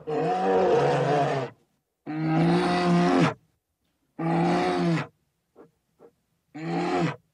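Brown bear giving four drawn-out, roaring calls, each a second or so long with short pauses between them, and two brief faint grunts before the last call.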